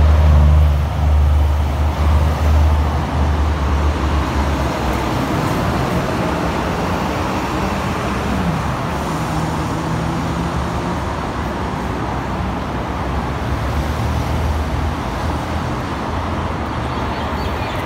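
City street traffic noise, a steady wash of motor vehicles, with a loud low engine rumble for the first five seconds or so.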